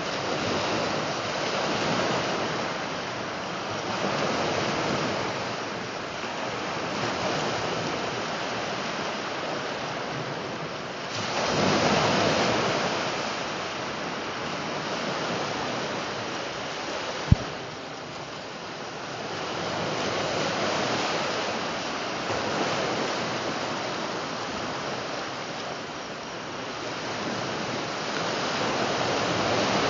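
Small waves breaking and washing on a shallow sandy beach, the surf swelling and fading every few seconds, with some wind on the microphone. A single sharp click a little past halfway.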